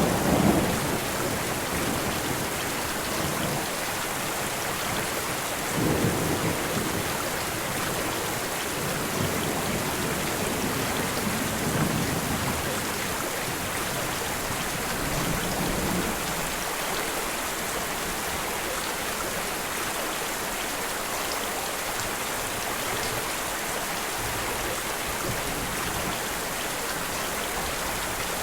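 Steady heavy rain hissing, with low rumbles of thunder near the start and about 6, 12 and 16 seconds in; after that only the rain continues.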